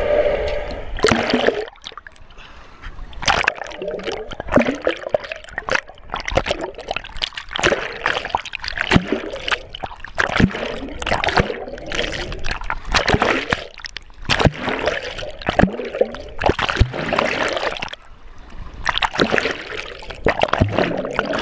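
Water splashing and sloshing close to the microphone in irregular bursts, with a couple of brief lulls.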